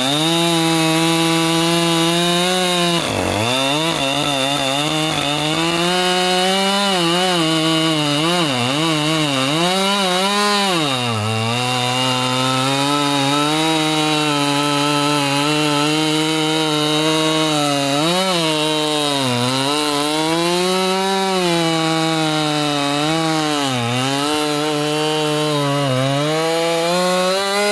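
Two-stroke chainsaw held at high revs while cutting into wood, its engine pitch repeatedly sagging and recovering as the chain bites and loads it. It drops away at the very end.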